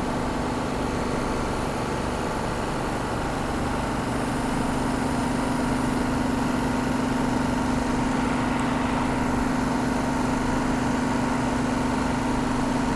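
Sprinter diesel multiple unit standing at the platform with its engines idling: a steady hum with a constant tone.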